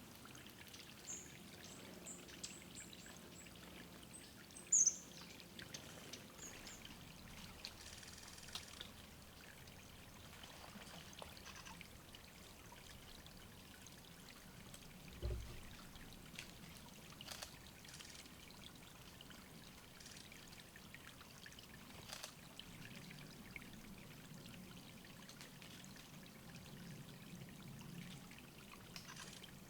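Water trickling steadily into a small forest pool, with thin, high bird calls over it for the first several seconds, the loudest a short falling note about five seconds in. A single dull low thump sounds about halfway through.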